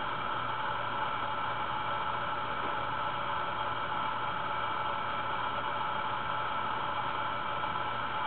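Steady background hiss with a faint constant hum, unchanging throughout.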